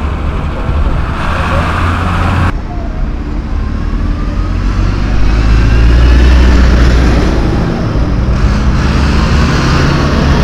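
Diesel engines of several large farm tractors running close by, a deep steady hum. The sound changes abruptly about two and a half seconds in. After that a rising whine builds as a tractor pulls past, loudest around six seconds in.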